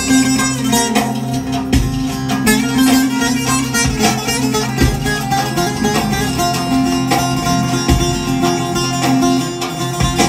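Saz (bağlama), a long-necked Kurdish/Turkish lute, played solo: a fast plucked folk melody over a steady low drone from the open strings.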